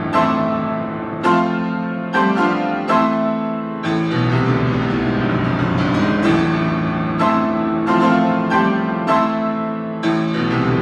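A 93-year-old grand piano, freshly tuned, played in chords struck about once a second and left ringing. Deeper bass notes join about four seconds in and again near the end.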